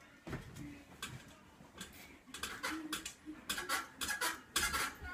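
Metal bed frame and springs clanking and rattling as a child dances and stomps on the mattress. The clatter is sparse at first and comes thick and fast from about halfway.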